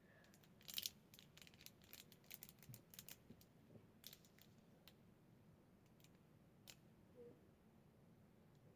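Faint handling of plastic fidget toys: a quick run of small sharp clicks during the first few seconds, then only a few scattered clicks.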